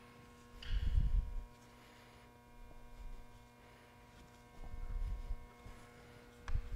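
Steady electrical mains hum, with a few soft low thumps and rubs and a sharp click near the end as a towel is pressed and wiped over a car's side mirror.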